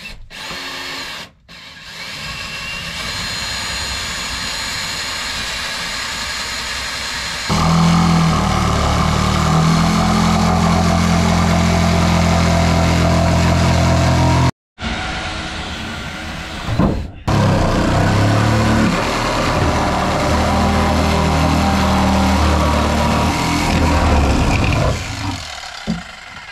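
Power tools working into a wooden plank wall: a cordless drill with a long bit boring a pilot hole, then, about seven seconds in, a louder reciprocating saw (Sawzall) cutting out an opening, in two runs separated by a brief break.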